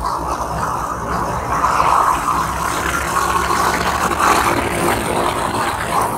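Motorcycle under way at road speed: engine running steadily with road noise.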